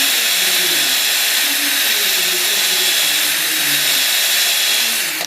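Drill running in reverse, spinning a fitting-cleaning attachment inside a 1/2-inch female copper fitting to scour it for soldering: a steady whir with scraping, stopping abruptly near the end.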